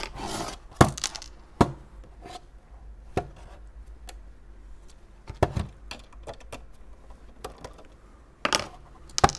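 Handling noise from a plastic modem case and its inner plastic frame being turned over and worked on by hand: scattered sharp clicks and knocks, about seven in all, with a brief rustle at the start, over a faint low hum.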